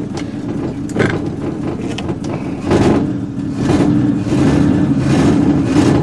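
Engine of a 1968 Chevrolet pickup running, getting louder about two and a half seconds in as it is given throttle.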